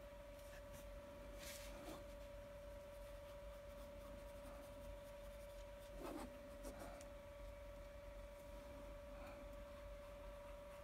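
Near silence: a faint steady hum at one pitch, with soft brush and hand sounds on a small canvas on a countertop, a couple of light knocks about six seconds in.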